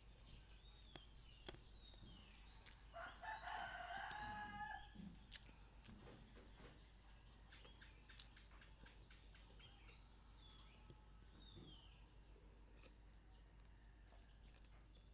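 A rooster crows once, about three seconds in, in a single call lasting close to two seconds. Faint bird chirps, a steady high-pitched whine and a couple of sharp clicks sound around it.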